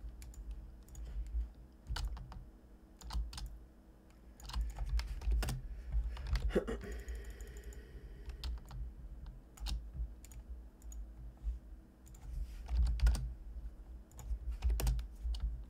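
Computer keyboard keys pressed in irregular short runs of clicks, as in entering software shortcuts, over a low steady hum.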